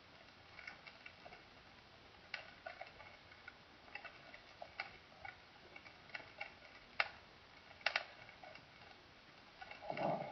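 Faint vinyl record surface noise: a light hiss with irregular clicks and pops scattered through it. Just before the end a louder, lower sound sets in.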